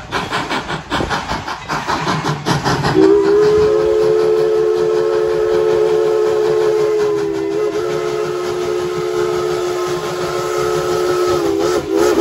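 Steam locomotive coming toward the listener, its exhaust chuffing in a steady rhythm, then a long blast on its steam whistle from about three seconds in. The whistle is a chord of several notes held steady, wavering briefly twice.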